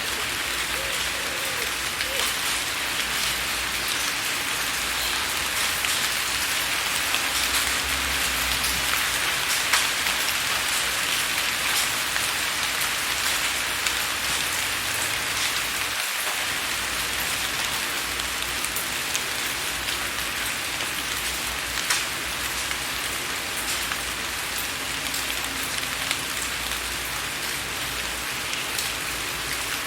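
Steady rain falling on window glass: a constant hiss with many small, sharp ticks of single drops striking the pane.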